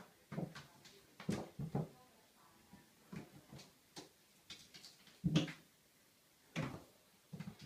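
Kitten's paws and claws knocking and scrabbling on an empty bathtub: a run of irregular thumps and scrapes, the loudest about five seconds in.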